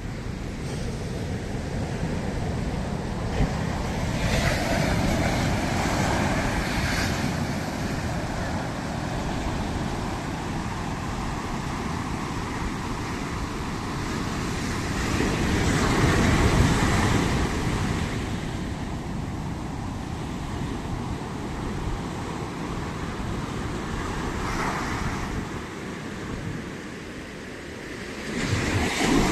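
Sea waves breaking on a shore: a continuous wash of surf that swells as each wave crashes, loudest about halfway through and again near the end.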